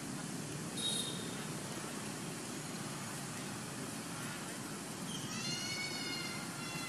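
A macaque's drawn-out, high-pitched call that bends and then falls in pitch, starting about five seconds in, over a steady low background rumble. There is a short high chirp about a second in.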